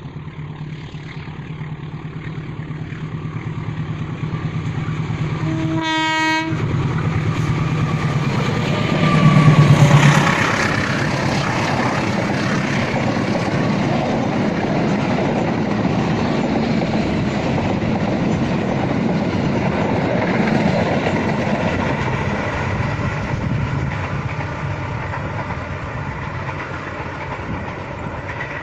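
Passenger train approaching and sounding its horn once, a short blast of about a second, then passing close by: a loud, steady rush of engine and wheel-on-rail noise that is loudest as the locomotive goes by about nine seconds in and slowly fades near the end.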